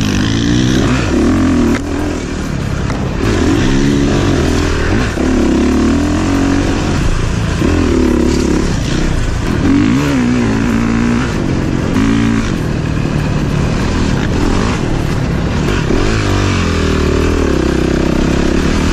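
Dirt bike engine under way on a trail, its note rising and falling over and over as the throttle is opened and closed.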